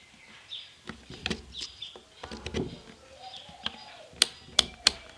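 Handling of a digital multimeter and its test leads, with a few soft knocks and rustles, then three sharp clicks about a third of a second apart near the end. Small birds chirp repeatedly in the background.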